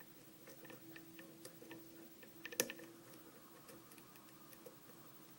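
Small metallic ticks and clicks of a hook pick working the pins inside a Schlage pin-tumbler lock under tension, with one sharper click about two and a half seconds in.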